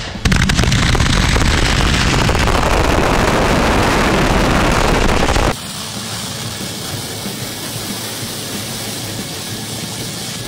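Hundreds of Excalibur 60-gram canister artillery shells firing and bursting together, so many reports that they merge into one dense, loud wall of noise. About halfway through it cuts off abruptly to a quieter, steady hiss.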